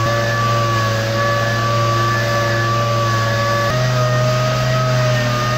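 Dual-action (DA) sander with coarse 36- or 40-grit paper running against steel roll-cage tubing, sanding off mill scale down to shiny bare metal. It makes a steady whine whose pitch steps up a little about two-thirds of the way through.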